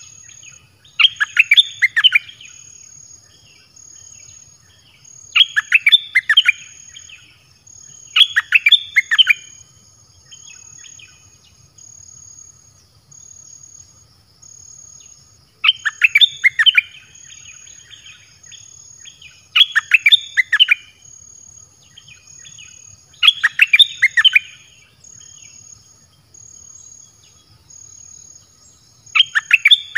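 Bulbuls singing in short bursts of quick, bubbling notes, seven phrases spaced a few seconds apart. The calls come from a caged decoy bird and a wild bird drawn to it. Insects drone steadily underneath with a pulsing high buzz.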